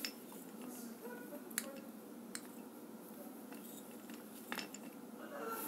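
A few light clicks over faint room noise, about a second and a half, two and a half and four and a half seconds in.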